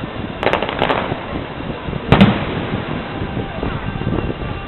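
Aerial firework shells bursting: a quick cluster of bangs about half a second in, then a single louder bang about two seconds in.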